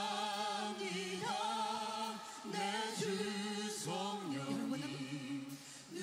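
Women singing a praise song, a lead voice with backing singers, in held notes with vibrato broken into short phrases; faint.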